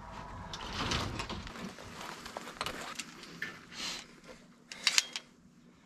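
Staple gun being handled and worked against chicken wire: rustling and scraping with scattered light clicks, then one sharp snap about five seconds in.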